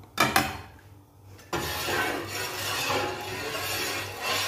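Two sharp knocks, then water in a large pot bubbling at a rolling boil, a steady hiss that starts suddenly about a second and a half in.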